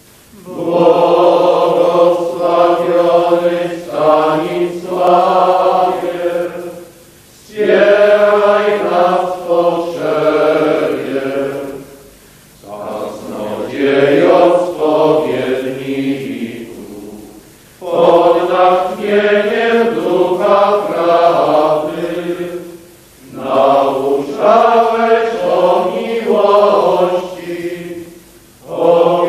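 A men's choir of canons regular singing a hymn unaccompanied, in chant-like phrases of about four to five seconds with short breaths between them.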